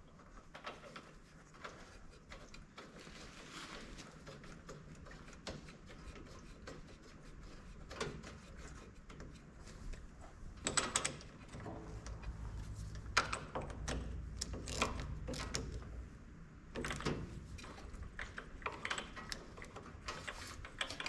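Scattered light clicks, taps and handling noises of hand tools and a new spark plug as it is fitted into a riding mower's engine, more of them in the second half.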